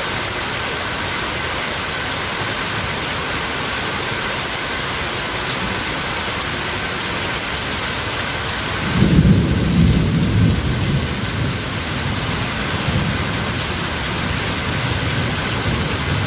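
Steady rain hissing. A rumble of thunder comes in about nine seconds in, is loudest for a second or two, then rolls on more faintly.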